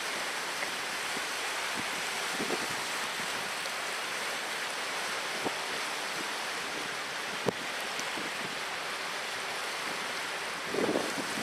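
Steady rushing harbour ambience of water and wind, with a few faint knocks and bumps near the end.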